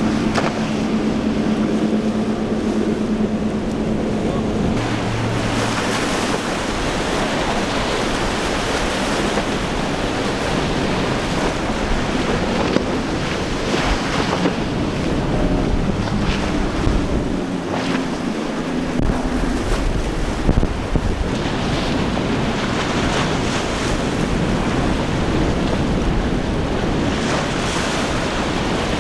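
Wind buffeting the microphone over the rush of waves and wake, with boat engines droning; a steady engine hum stands out in the first few seconds and again around the middle.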